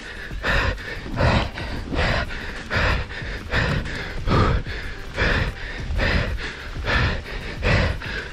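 An exhausted mountain biker panting hard and rhythmically, a loud breath about every three-quarters of a second, out of breath from all-out pedalling.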